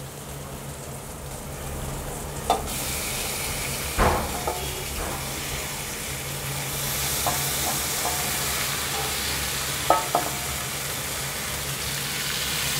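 Marinated chicken pieces sizzling as they go into hot oil and onion-tomato masala in a kadai. The hiss grows louder a few seconds in and again midway as more chicken goes in, with a few sharp knocks and scrapes from the stirring.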